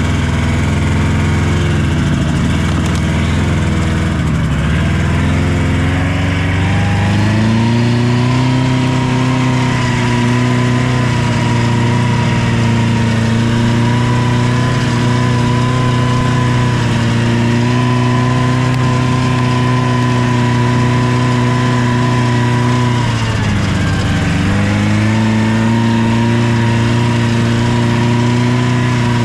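Vehicle engine running under way, its note climbing in pitch a few seconds in, then dropping briefly and picking back up a little after twenty seconds.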